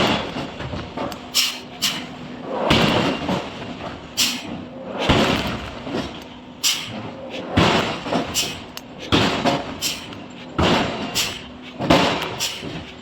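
Heavy hammer blows on metal at an uneven pace, roughly one every half second to a second, each ringing briefly and echoing as in a large hall, over a faint steady hum.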